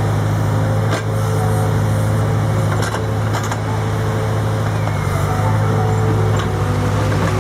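A motor running steadily with a low hum, with a few sharp clicks over it.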